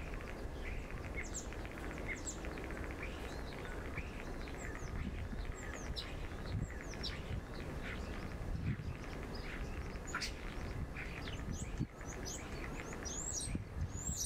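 Common starling singing: a string of short whistles, some rising and some falling, with a few sharp clicks, over a steady low background rumble, as picked up by a camera's built-in microphone.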